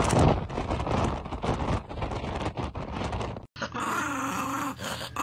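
Dense crackling noise with rapid clicks, cut off suddenly about three and a half seconds in, then a dog growling steadily.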